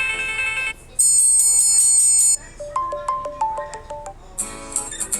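Built-in ringtone and notification tones of a Samsung Galaxy tablet, played back to back as short snippets. First a brief chord, then the loudest part, a rapidly pulsing high electronic tone lasting over a second. After that comes a quick run of mallet-like notes, and a bright high chime near the end.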